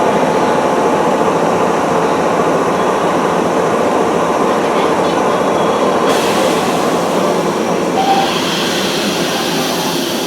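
Electric train running through the station alongside the platform, a steady loud rumble of wheels on rail that changes in character about six seconds in.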